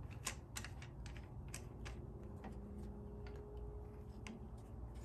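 Faint, irregular light clicks and taps, a couple per second, from small metal parts of a drill-press depth stop being handled and fitted, as an unthreaded stop rod is slid into the hole of an aluminum block.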